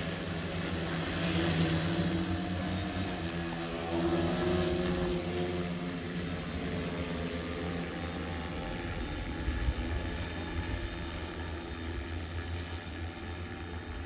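Multi-rotor agricultural spray drone's propellers humming in flight, the hum shifting in pitch in the first few seconds and growing a little fainter in the second half as the drone moves off.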